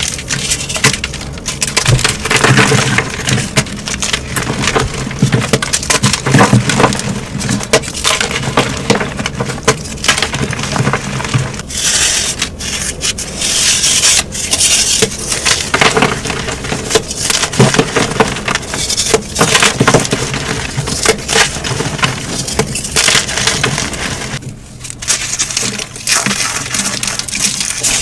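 Blocks of gym chalk, dyed and plain, being crushed, crunching and crumbling in a dense run of sharp crackles, with a brief lull near the end.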